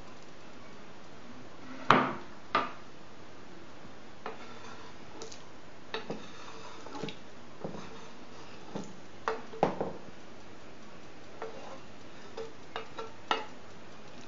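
A white spoon stirring soup in a multicooker's inner pot, with scattered clinks and knocks against the pot, the two sharpest about two seconds in. Chopped boiled egg is tipped in from a cutting board, with another run of knocks near the middle.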